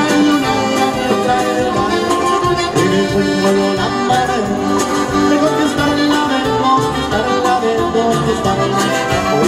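Live cumbia played by a norteño band: a strummed bajo sexto, electric bass and drum kit under a melodic lead line, with a steady dance beat.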